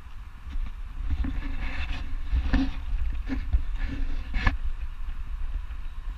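Wind rumbling on the microphone at an outdoor construction site, with a few short, indistinct knocks and sounds between about one and four and a half seconds in.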